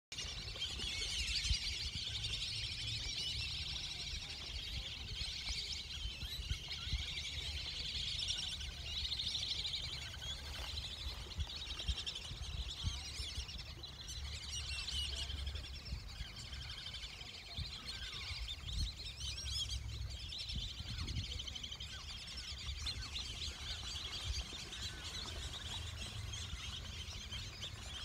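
A dense, continuous chorus of many birds chirping and calling together, with a low, uneven rumble underneath.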